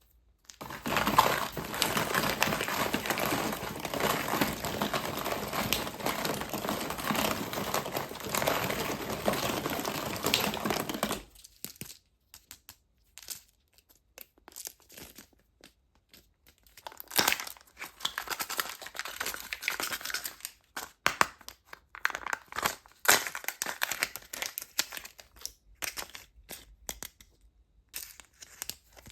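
Plastic wrappers of surprise eggs and candy packs being crinkled and torn open by hand. Dense, continuous crinkling runs for about the first eleven seconds, then gives way to scattered shorter bursts of crinkling.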